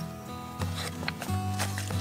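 Background music with held low notes that change every half second or so.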